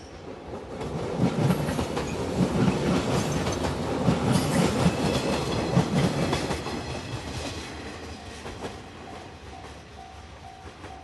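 JR 115 series electric train passing over a level crossing: wheels clattering over the rail joints, loud through the middle and fading away. The crossing's alarm keeps ringing, heard as repeating dings about twice a second once the train noise dies down near the end.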